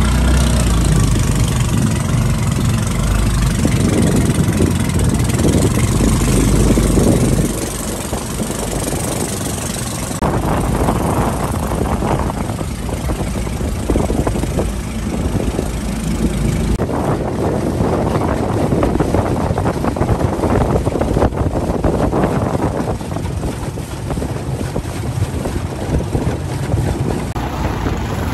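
A small fishing boat's motor running steadily as the boat moves across the water, dropping a little in loudness about seven seconds in.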